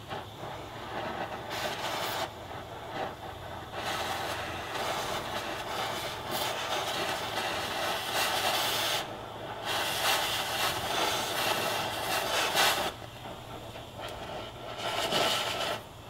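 Cutting torch hissing as it blows through the rusted steel of an old floor pan. The noise comes and goes in long stretches with short breaks between them.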